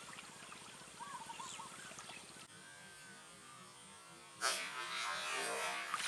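Faint bird chirps, then about four and a half seconds in a sudden splash and water churning at the surface: a fish striking the lure.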